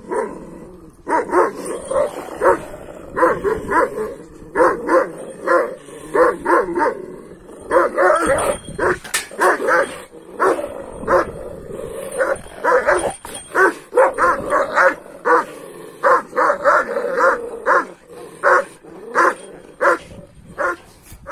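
Kangal shepherd dogs barking at each other, in quick runs of several barks with short gaps between.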